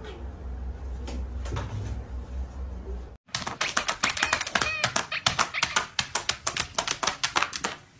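A low rumble for about three seconds, then after a cut a rapid, uneven run of sharp clicks and taps with a few brief squeaky tones, as a dog paws quickly at a tablet screen.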